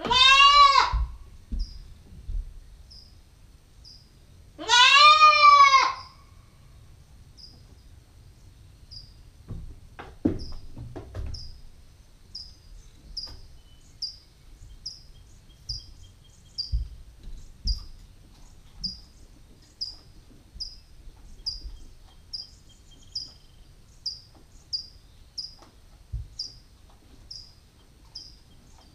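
Nubian goat kid yelling twice: a loud bleat of about a second right at the start and a longer one about five seconds in, each arching up and down in pitch. Then a short, high chirp repeats about once a second and grows more frequent, with a few soft knocks about ten seconds in.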